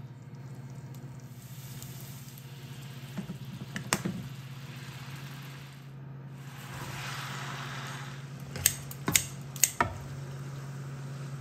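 Pan cooking: soft sizzling of oil and a garlic-soy sauce in a nonstick wok, swelling a little past the middle, with a few sharp knocks of a spoon against the pan near the end. A steady low hum runs underneath.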